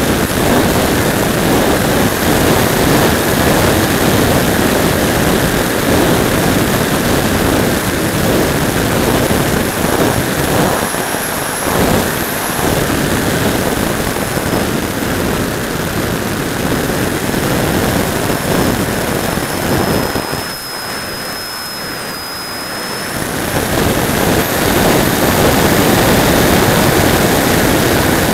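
Whine of a Radjet RC plane's 3800kv brushless motor and 5x5 propeller, with heavy wind rush, heard from the camera mounted on the plane in flight. The sound dips for a few seconds about twenty seconds in, then comes back up to full strength.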